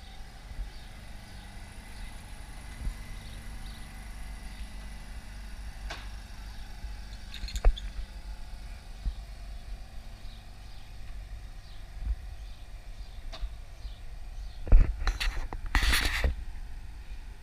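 Vintage Blackpool 'Boat' open-top electric tram running on street track, a steady low rumble as it passes and draws away. A few single clicks along the way and a short cluster of loud knocks about fifteen seconds in.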